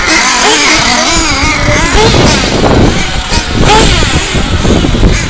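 Small nitro glow engines of radio-controlled off-road buggies revving hard, several at once, their high pitch climbing and dropping as the cars accelerate and brake.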